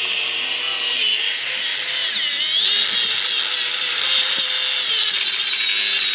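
Electric angle grinder with a cutting disc running under load as it cuts through the rubber of a small golf-buggy tyre; its steady whine dips in pitch and recovers a few times as the disc bites.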